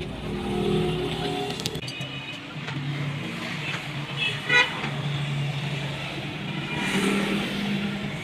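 Motor vehicle engines running, with a short horn toot about four and a half seconds in.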